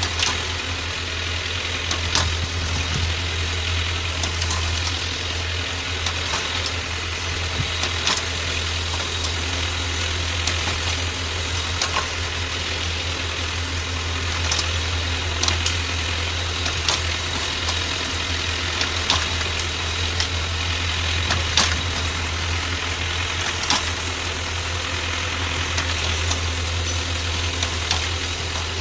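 A tractor engine runs steadily, driving a Calderoni FPS55 under-row rotary tiller as it churns soil, with a few sharp clicks scattered throughout.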